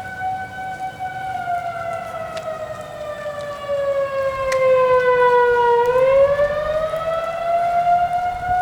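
Outdoor tornado warning siren sounding a tornado warning: one pitched tone with overtones that slowly falls in pitch for about five seconds, then climbs back up near the end.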